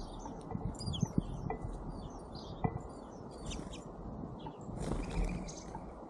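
Songbirds chirping: many short, high chirps and tweets, overlapping and irregular, with a harsher, noisier call about five seconds in. A few soft knocks sound underneath.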